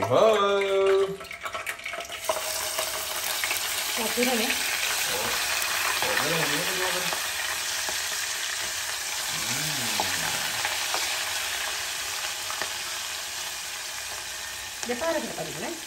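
Dried sprats frying in hot oil in a saucepan: a steady, dense sizzle that sets in about two seconds in.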